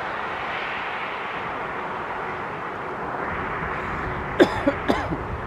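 Jet airliner noise at an airport: a steady rushing that eases off slowly. Three or four short, sharp sounds come near the end.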